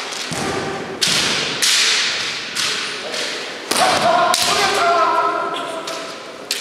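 Kendo exchange: sharp cracks and thuds of bamboo shinai strikes and bare feet stamping on a wooden floor, each echoing in the hall. From about three and a half seconds in, a long drawn-out kiai shout runs on for a couple of seconds.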